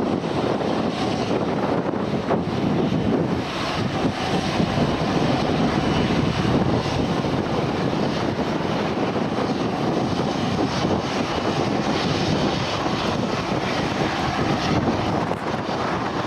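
Aircraft engines running, a steady loud rush mixed with wind buffeting the microphone.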